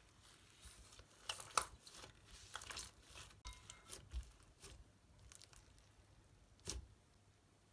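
Hands working glossy slime: irregular sticky crackles and small snaps as it is pressed and stretched. The loudest snaps come about a second and a half in and again near the end.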